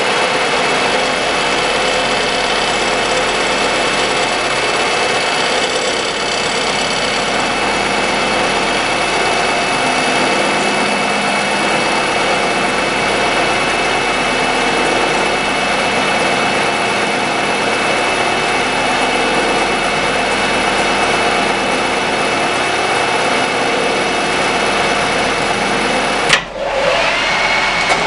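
Milling machine taking a steady face-milling cut across a laminated steel block, a continuous machining noise with the G-clamp's handle rattling against the work. Near the end the sound drops out suddenly for a moment, then the machine is heard again with a steady high whine.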